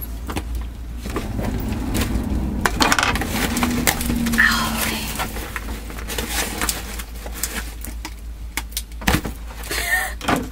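A cardboard parcel box being worked open by hand: scattered crackles, scrapes and clicks of cardboard and packing tape.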